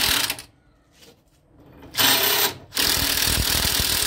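Cordless impact wrench hammering in bursts on the front strut and knuckle bolts of a 2001 Ford Windstar, which are very tight. One run stops about half a second in; after a pause comes a short burst and then a longer one.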